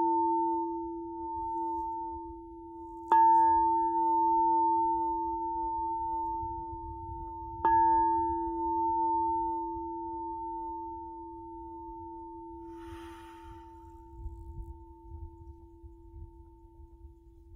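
Frosted quartz crystal singing bowl struck with a mallet twice, about three seconds in and again near eight seconds in, each strike ringing on as a steady low hum with a higher overtone above it. The ring slowly fades, the higher overtone dying away near the end while the low hum lingers faintly.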